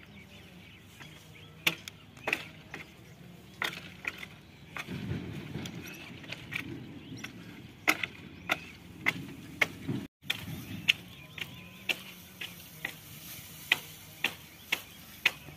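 A series of sharp, irregular knocks, about one or two a second, with low noise underneath between about five and ten seconds in.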